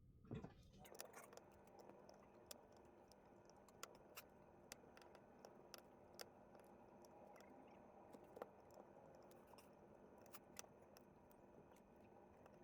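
Faint, irregular small clicks and taps of hand tools on a smartphone's parts during disassembly, over a low steady hum.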